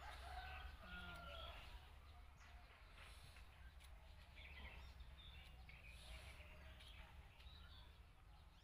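Near silence: quiet rural ambience with a low steady hum and a few faint bird chirps, mostly in the first second or so.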